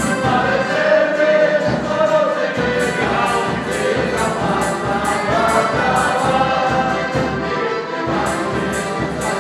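Polish folk band with accordions playing lively dance music, with a steady beat.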